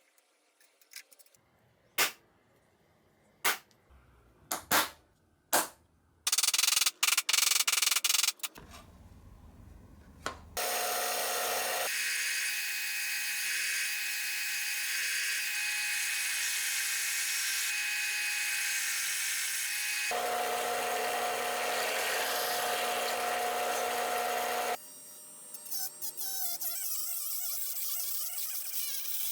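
Small electric power tool working wood: a few sharp clicks, a short loud burst, then the tool running steadily for about fourteen seconds with a fixed whine before it stops abruptly, followed by quieter working noise.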